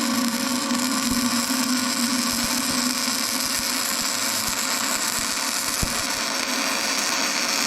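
Flux-core wire-feed welder arc burning steadily, a continuous crackling hiss as a bead is laid, stopping abruptly just after the end.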